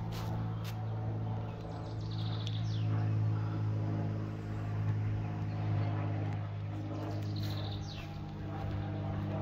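A steady low mechanical drone, like a distant engine, runs throughout. A few short bird chirps come over it, about two seconds in and again near the end.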